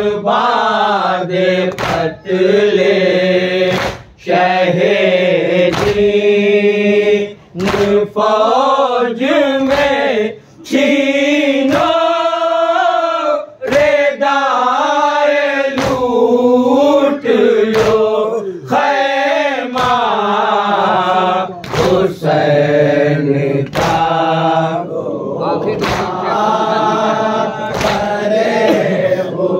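Men chanting a noha, a Muharram lament for Husain, in unison, led by one older voice with the group singing along in long drawn-out lines. A sharp slap of chest-beating (matam) lands about every two seconds under the chant.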